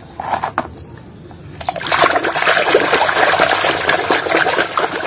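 Hand swishing a small plastic toy bus through a tub of water: continuous loud splashing and churning that starts about a second and a half in. Before it, a few light knocks of plastic toys against a plastic basket.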